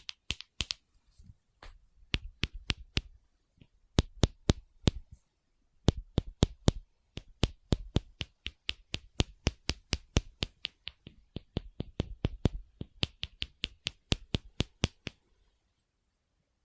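ASMR tapping: a long run of quick, sharp taps and knocks on a hard object, coming in uneven bursts of several per second with brief pauses, stopping shortly before the end.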